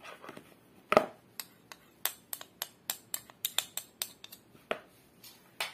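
Sharp clinks of a small ceramic bowl being tapped to knock the last of the tapioca flour into a mixing bowl. One louder knock about a second in, then a quick run of about a dozen light clinks and another knock at the end.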